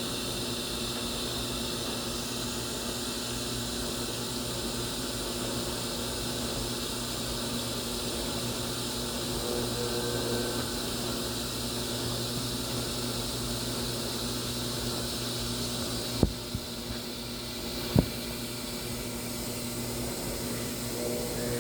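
Washing machine running a whites cycle with a steady hum, broken by two sharp clicks near the end.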